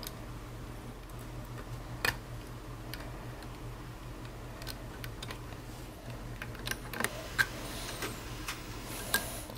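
Faint, scattered small metallic clicks and taps of a screwdriver and tiny screws as a nameplate label is fastened onto the metal body of a Golden Gem mechanical adding machine, over a steady low hum.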